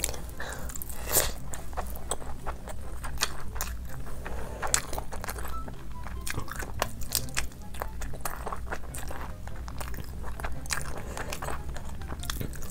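Close-miked eating: big bites and chewing of crunchy food, a dense run of sharp crunches and crackles.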